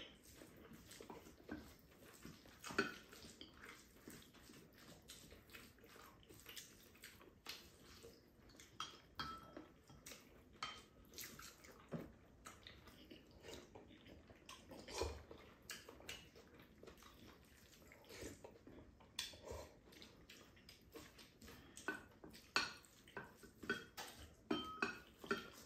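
Spoons tapping and scraping against ceramic bowls while two people eat, with small eating sounds; faint, irregular clicks throughout.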